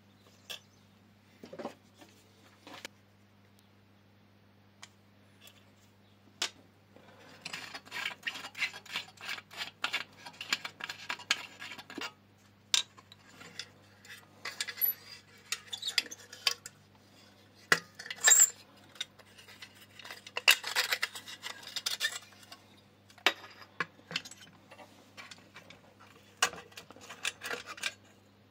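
Small sheet-metal parts of a hurricane oil lantern being handled, knocking and clinking together, with two spells of quick rattling clicks.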